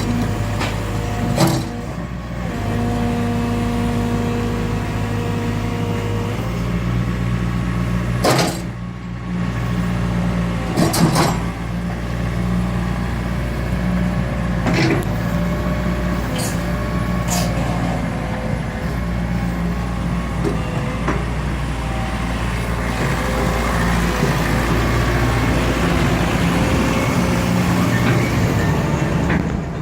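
JCB 8065 RTS mini excavator's diesel engine running steadily, its pitch stepping up about six seconds in, with scattered sharp knocks and clanks from the machine.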